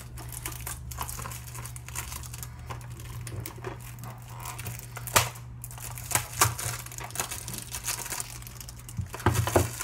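Plastic wrapping being crinkled and torn off a small cardboard box by hand, an irregular crackling with a few sharper snaps, the loudest about halfway through and several more near the end.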